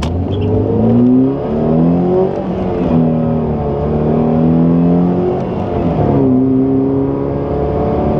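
The 2008 Pontiac Solstice's 2.4-litre four-cylinder engine, breathing through a K&N Typhoon cold air intake, accelerating hard. The revs climb and fall back at each upshift, several times over.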